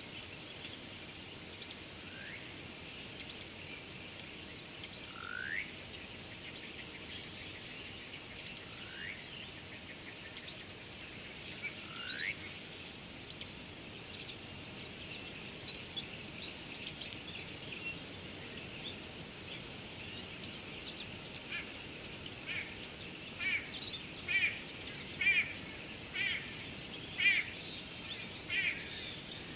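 Natural daytime ambience: a steady high insect drone, with four short rising call notes spaced a few seconds apart in the first half and a run of louder, quick chirping calls over the last several seconds.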